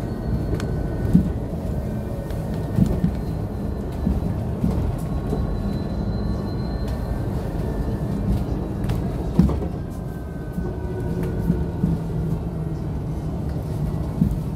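Cabin noise of a KAMAZ-6282 electric bus on the move: a steady low rumble of road and tyres with a few knocks and rattles, the loudest about nine seconds in, and a thin electric drive whine that rises and falls with speed.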